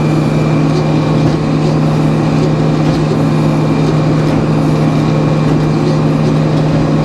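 Sawmill's engine running at a steady speed, a constant hum with no rise or fall in pitch.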